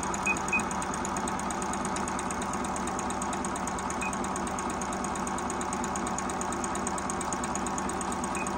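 Juki HZL-009 Jupre computerized sewing machine running steadily as it sews a picot stitch, with a few short high beeps from its touch panel: two near the start, one about four seconds in and one near the end.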